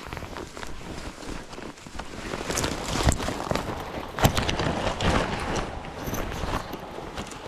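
Someone pushing fast through dense forest undergrowth: branches and brush swishing against clothing, with irregular snapping of twigs underfoot that grows louder and busier about two seconds in.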